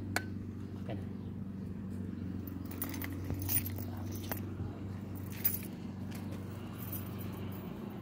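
Sharp clicks and light rattles of a jump-starter booster pack being handled: a click just after the start as its control is worked, then more clicking and rattling around the middle and near the end. A steady low hum runs underneath.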